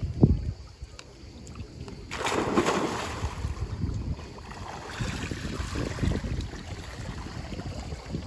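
A person plunging into a swimming pool with a loud splash about two seconds in, followed by the uneven splashing of swimming strokes. A short low thump comes just at the start.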